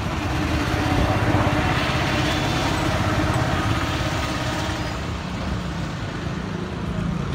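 A motor vehicle engine running steadily, with a dense rumbling noise that swells a little about a second in and eases off slightly after about five seconds.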